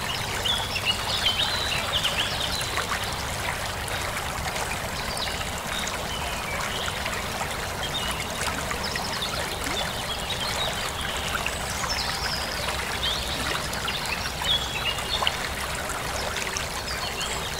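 Steady trickle of running stream water, with scattered faint high chirps.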